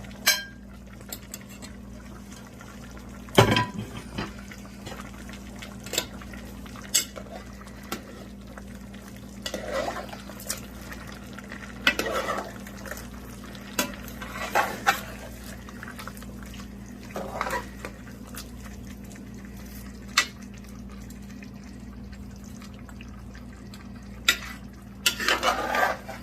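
A spoon stirring and scraping in a pot of chicken stew with fresh vegetables, with occasional knocks and clinks of the spoon against the pot.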